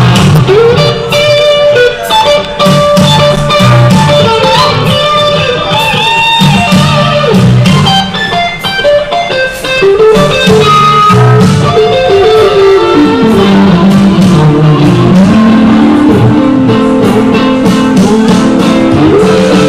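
Live blues-rock jam: an electric guitar, a Fender Stratocaster, plays lead lines with sustained, bending notes over bass guitar and band accompaniment, in a loud recording with bad sound.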